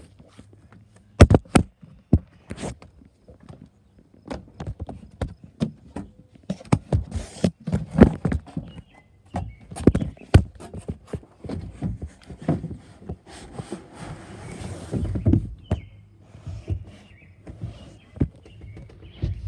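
Irregular knocks, taps and scuffs on a hard surface, loudest about a second in and again near the middle, with a short scraping scuff about three quarters of the way through.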